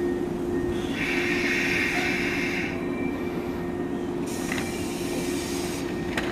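JR West 117 series electric train pulling into the platform and braking to a stop: a steady hum throughout, a brake squeal from about a second in lasting under two seconds, then a hiss and a couple of sharp clicks as it comes to rest.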